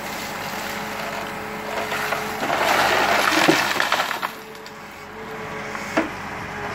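Hidromek backhoe loader's diesel engine running steadily as the bucket swings. About three seconds in, a louder rush of wet earth and stones pouring out of the bucket onto the spoil heap, with a few knocks of stone on stone and a clack near the end.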